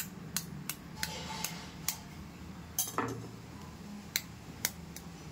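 A knife blade tapping a quail eggshell to crack it: a series of sharp clicks, several in quick pairs, with a low steady hum underneath.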